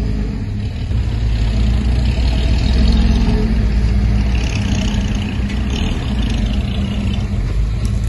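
The diesel engine of heavy earthmoving machinery runs hard under load, swelling louder around two to three seconds in.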